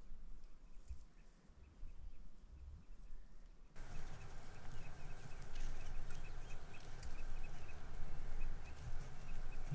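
A small bird chirping in a quick, even series of short notes over low wind rumble. About four seconds in, the background noise suddenly gets louder.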